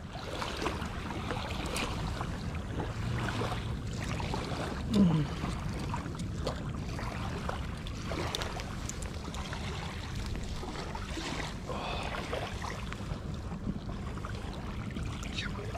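Steady waterside ambience of wind on the microphone and water, with scattered faint clicks of fishing tackle as a metal lure and line are handled. A brief falling voice sound comes about five seconds in.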